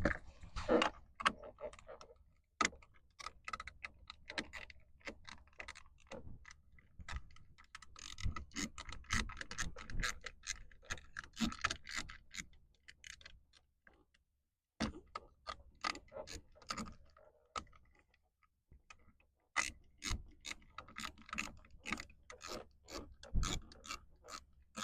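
Ratchet wrench with a 10 mm socket clicking in quick runs as a seat belt bolt is tightened, with short pauses between runs.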